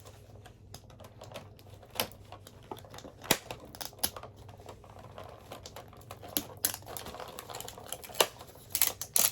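Packaging being handled and pried at by hand while someone struggles to open it: irregular sharp clicks and taps, with a few louder snaps scattered through.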